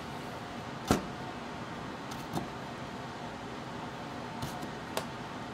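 Chef's knife cutting a carrot on a plastic cutting board: a few scattered sharp knocks of the blade hitting the board, the loudest about a second in, over a steady background hum.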